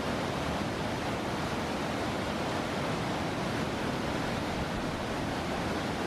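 Cross River waterfall rushing down rock ledges: a steady, even wash of falling water.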